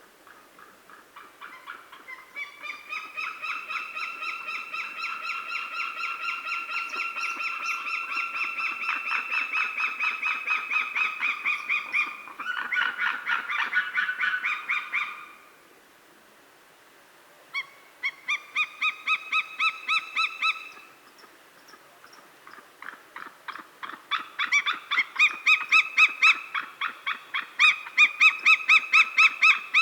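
A pair of white-tailed sea eagles calling in duet: long series of rapid, evenly repeated call notes in three bouts, with the second bird's calls overlapping the first partway through. A creek runs faintly underneath.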